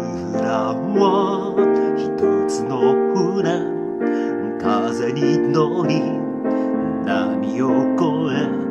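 A man singing a Japanese song to his own piano accompaniment, with the piano holding chords under the voice.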